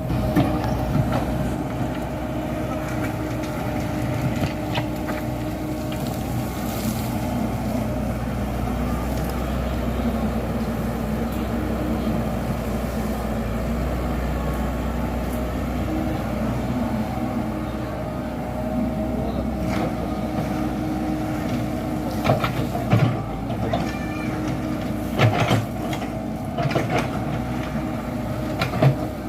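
Komatsu PC78 excavator's diesel engine running steadily under work. In the last third, several sharp knocks and clanks of the machine at work stand out above it.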